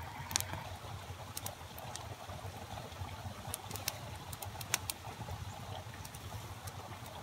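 Small campfire crackling, with scattered sharp pops and ticks over a steady background rush.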